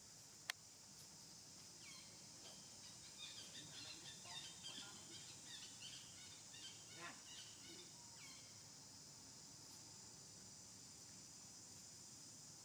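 Quiet outdoor ambience: a steady high insect-like hiss, a single sharp click about half a second in, and a few seconds of faint scattered chirps starting about two seconds in.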